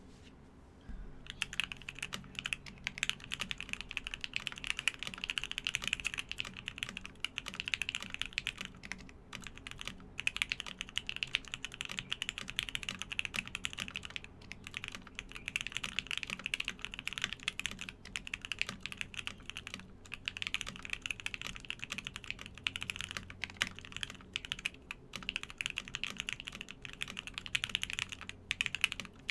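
Typing on a custom mechanical keyboard with lubed Banana Split linear switches on an FR4 plate, with PBT keycaps. It is a fast, continuous stream of key clacks with a few brief pauses, starting about a second in, over a faint low background hum.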